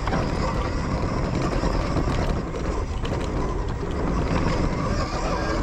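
Zero FX electric dirt bike ridden over a rough trail: steady wind rush and rattling of the bike over the ground, with a faint steady whine from the electric motor.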